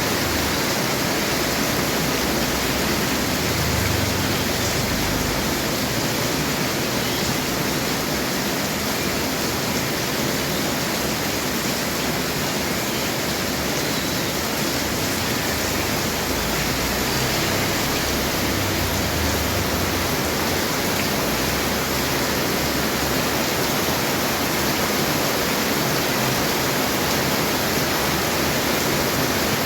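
Heavy rain falling, a steady even hiss that does not change.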